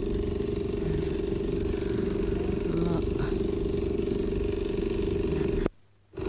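A steady mechanical hum with a low rumble beneath it, cutting out abruptly to near silence for about half a second near the end before it returns.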